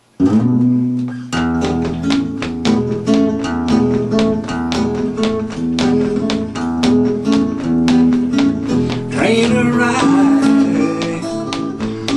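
Steel-string acoustic guitar playing a steady rockabilly-blues rhythm, picked strokes over a repeating bass line, starting suddenly at the opening.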